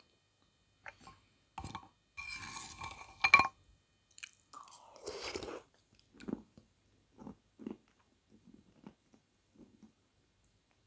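Close-up eating sounds: a metal spoon scraping and clinking in a ceramic soup bowl, with one sharp clink about three seconds in, then repeated soft chewing with small mouth smacks.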